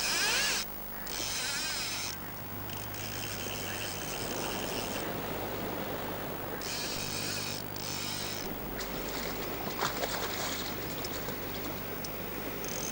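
Fly reel's ratchet buzzing in repeated spurts of a second or two as a hooked salmon is played, line running off and being wound back. Under it is a steady rush of river water.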